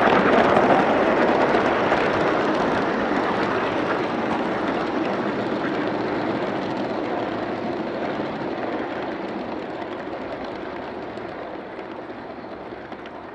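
Wheels of a long train of model tank cars rolling along garden-railway track behind a live-steam locomotive, a steady clattering noise that fades gradually as the train draws away.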